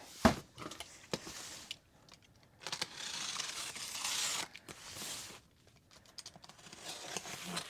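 Cardboard shipping box being opened and unpacked: a sharp click near the start, then tearing and crinkling of tape and packing material in two stretches, the longer one in the middle, with scattered clicks and rustling near the end.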